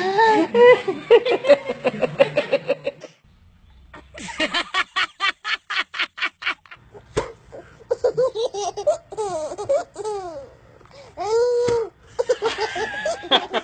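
Babies laughing in several short runs one after another, each with its own rhythm of quick, pitched laughs, separated by brief breaks.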